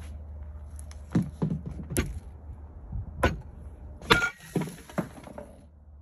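A wooden stick striking a block of ice, a series of sharp knocks and cracks. The loudest blow, about four seconds in, is an overhead swing that shatters the ice, followed by two smaller knocks.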